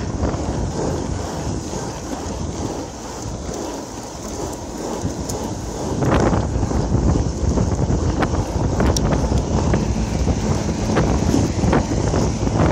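Longboard wheels rolling over asphalt, with wind rumbling on the microphone. The noise eases a few seconds in and grows louder again about six seconds in, with a few faint clicks.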